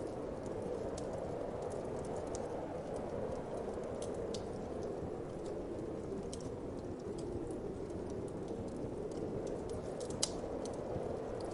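Wood fire crackling with scattered sharp pops, one louder pop about ten seconds in, over a steady whooshing wind.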